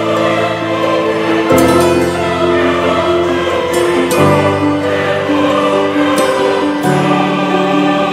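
Background music of slow, sustained chords that change about every two to three seconds.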